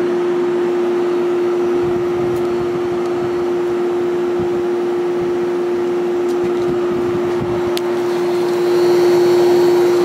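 Vintage 1970s Whirlpool 6,000 BTU window air conditioner running with its rotary compressor on: a loud steady humming sound over the rush of the blower, a little louder near the end.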